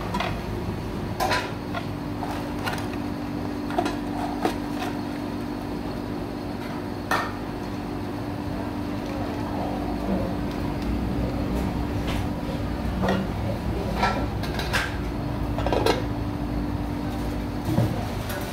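Bingsoo snow-ice machine running, its motor turning the ice block against the shaving blade with a steady hum. Sharp clicks and knocks come every second or two.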